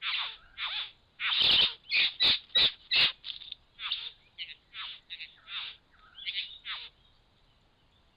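Satin bowerbird giving a rapid run of short, harsh chattering calls, some sliding down in pitch. The calls stop about seven seconds in.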